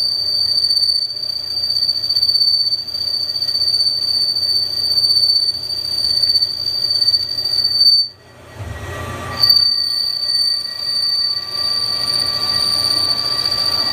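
Loud, steady high-pitched squeal from a button-insert turning tool cutting aluminum on a Haas SL10 CNC lathe during dynamic roughing, caused by a feed rate set too slow. The squeal breaks off about eight seconds in for a second or so, then resumes with a second, lower tone beneath it.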